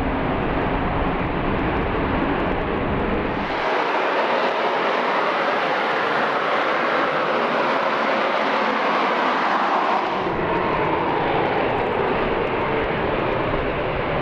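Boeing X-32B's jet engine running at high power to hold the aircraft in a vertical-lift hover: a steady, loud rush of jet noise with no distinct pitch. About four seconds in the deep rumble drops away and the sound turns more hissy, and the rumble comes back a little after ten seconds.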